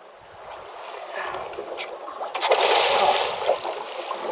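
Water splashing and churning at the surface as a large shark thrashes on a hooked fish. It builds from about a second in and is loudest in the second half.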